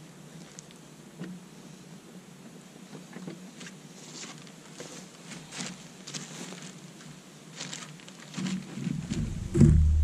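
Plastic bags rustling and crinkling as a stuffed bag is lifted and set down behind a ballistic gel block. It comes as a scatter of short crinkles. Near the end a much louder low rumble starts.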